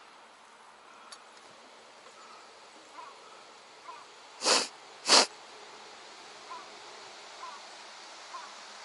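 Two quick sniffs close to the microphone, about half a second apart, over a low outdoor background with a few faint short chirps.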